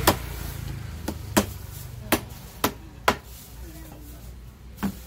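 Large knife chopping through a tuna at the head and striking a thick wooden chopping block: about seven sharp knocks at uneven intervals, the first the loudest.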